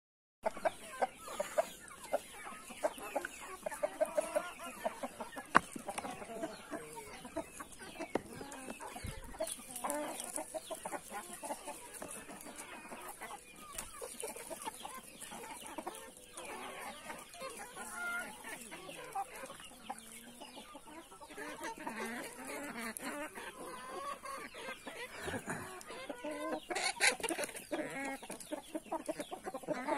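A flock of Brahma chickens clucking without pause as they feed, with many short, sharp taps of beaks pecking at the ground.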